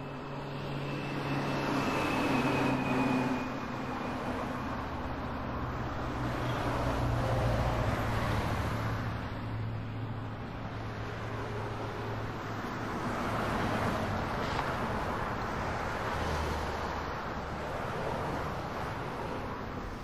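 Street traffic: vehicles passing in slow swells that rise and fade several times, over a steady low hum.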